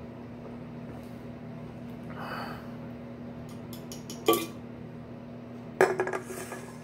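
An aluminium drink can clinking and knocking on a hard tabletop as it is handled and set down, with a sharp knock a little past four seconds in and another near the end followed by a short clatter. A low steady hum sits underneath.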